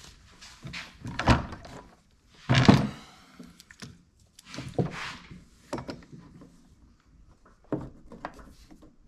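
A series of knocks, clunks and a brief metallic rattle from tools and chainsaw parts being handled and set down on a workbench. The loudest comes about two and a half seconds in.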